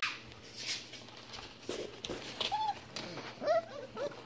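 Young standard poodle puppies giving a few short, high whimpers and squeaks, mostly in the second half, with soft scuffling clicks in between.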